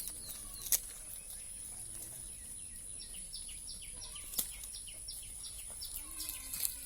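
A bird calling a rapid series of short, falling chirps, about three a second, over a steady high-pitched whine, with a few sharp clicks.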